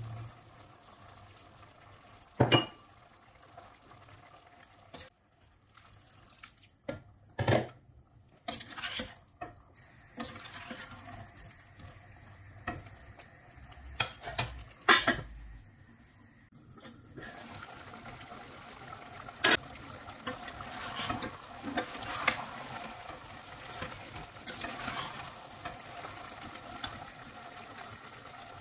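Metal ladle knocking and scraping against a stainless steel pot while stirring vegetables, a dozen or so sharp clanks at irregular intervals. A soft steady hiss of the pot cooking comes in about halfway through.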